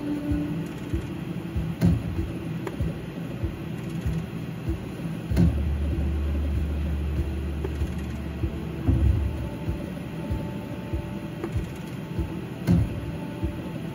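Rocky slot machine's game sounds during back-to-back max-bet spins: the reels run with a thud about every three and a half seconds as each spin lands. A low hum sounds from about five to nine seconds in.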